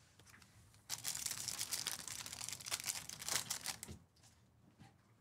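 A trading-card pack wrapper being torn open and crinkled: a dense run of crackling from about a second in, lasting about three seconds.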